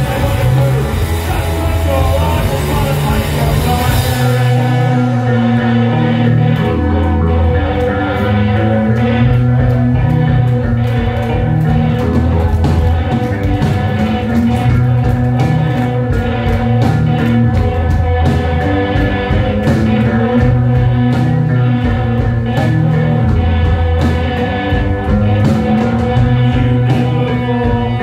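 Post-punk band playing live and loud: electric guitars, bass and drums. Cymbals wash over the first few seconds, then the drums settle into a steady driving beat under a repeating bass line.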